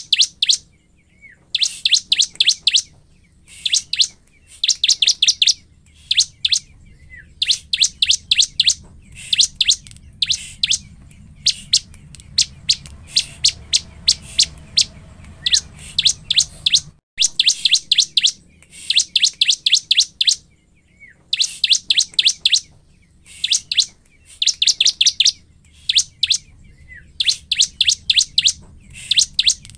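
Bar-winged prinia (ciblek) singing vigorously: bursts of rapid, high, sharp chirping notes, each burst under a second long, repeated over and over with short pauses. Around the middle there is a lull of a few seconds with only faint notes, and then the bursts start again.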